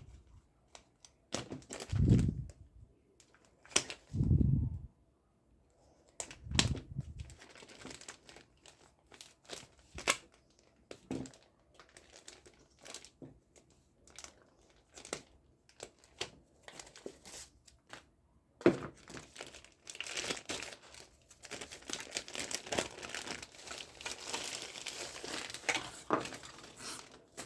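Toy gun being unboxed: plastic packaging crinkling and tearing, with scattered clicks. There are several dull thumps in the first few seconds, and the crinkling is densest in the last several seconds.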